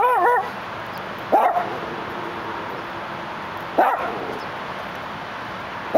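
Dachshund barking: single short barks that rise and fall in pitch, about every two and a half seconds, over a steady background hum of city noise.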